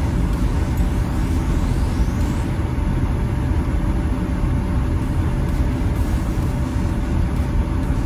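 Steady low rumble of a car's engine and tyres heard from inside the cabin while driving slowly on a snow-covered road.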